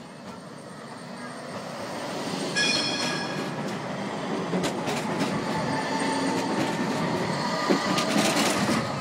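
Porto Metro light-rail train approaching and passing close by, its running noise building as it nears. A brief high-pitched tone sounds about two and a half seconds in, and the passing cars bring clicks from the wheels on the rails and some wheel squeal.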